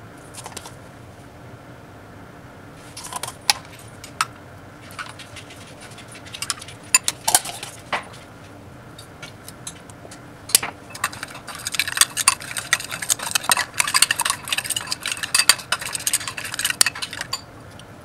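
Metal spoon clinking against a glass bowl: a few scattered taps and knocks, then from about 11 seconds in a run of fast clinks as mayonnaise and hot sauce are stirred together.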